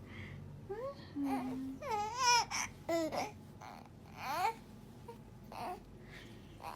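A two-month-old baby cooing and babbling in a string of short vocal sounds with wavering, gliding pitch. The loudest come around two seconds in.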